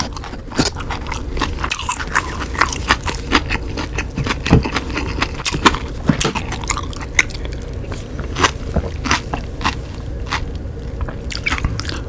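Close-miked food and mouth sounds of spoon-and-sauce handling and eating: irregular sharp clicks, crackles and scrapes, several a second, over a low steady hum.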